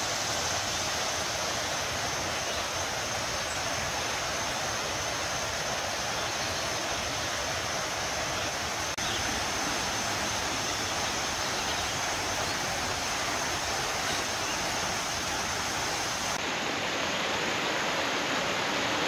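Creek water running, a steady even rush.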